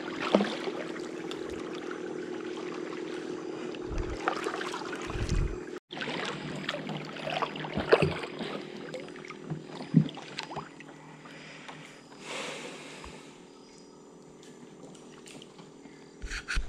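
Kayak paddling on calm water: paddle blades splashing and dripping, with scattered light knocks, over a steady low hum.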